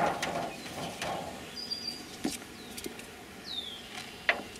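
Ratchet strap webbing rustling and its hook clinking as it is pulled off a top bar hive, followed by a couple of light knocks on the hive's metal lid. A bird gives two short chirps in the background.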